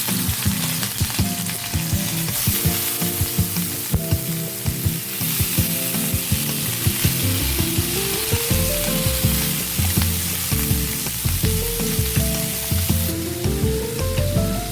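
Food sizzling in a hot frying pan with steady spitting hiss, stirred with scraping clicks against the pan, under background music with a melody.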